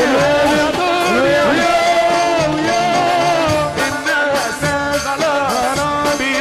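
Egyptian sha'bi wedding music: an ornamented melody that bends and slides in pitch over a steady percussion beat.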